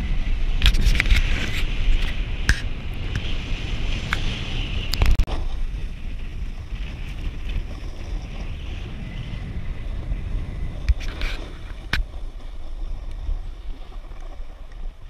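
Wind buffeting a helmet or chest-mounted GoPro's microphone as a low rumble, with the hiss of a snowboard sliding over groomed snow and a few sharp knocks from bumps. The hiss is strongest in the first five seconds, then both ease off as the rider slows.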